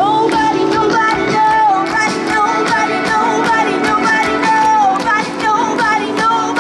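Live rock band playing: drums keep a steady beat under a sliding, bending lead melody line and a sustained chord.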